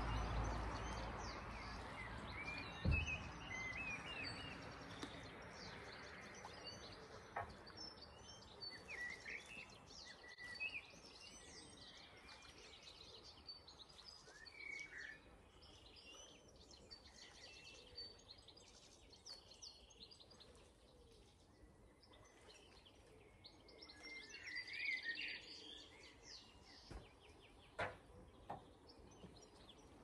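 Small birds chirping and singing in many short, scattered calls over a faint background hush. A low hum fades away over the first few seconds, and there are a few light knocks.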